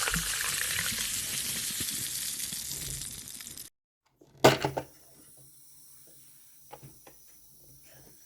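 Water running in a steady hissing stream that cuts off abruptly about three and a half seconds in. About a second later comes one sharp knock, then a few faint clicks.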